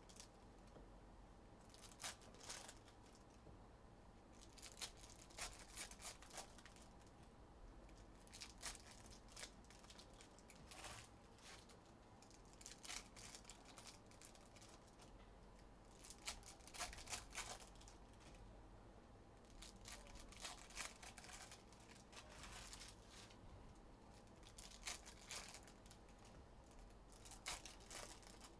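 Faint tearing and crinkling of trading-card pack wrappers as packs are ripped open and the cards handled, in scattered short rustles.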